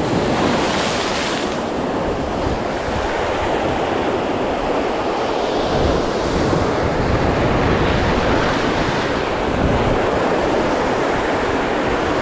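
Sea surf breaking and washing over shore rocks, swelling louder several times as waves crash in, with wind buffeting the microphone.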